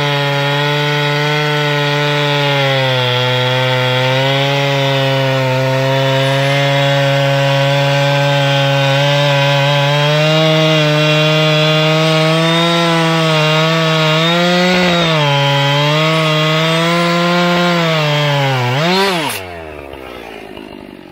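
Husqvarna 576 XP two-stroke chainsaw with a 32-inch bar running hard under load, ripping lengthwise through a red oak log in an Alaskan chainsaw mill, its pitch wavering slightly with the load. Near the end the engine briefly rises, then drops sharply in pitch and the sound falls away much quieter.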